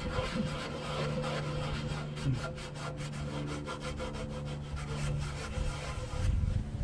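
A cloth rag rubbing back and forth over the painted sheet-metal shroud of an old Briggs & Stratton engine, in quick repeated wiping strokes, over a faint steady hum.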